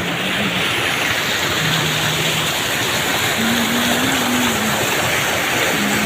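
Waterfall: falling water making a steady, even rush with no breaks.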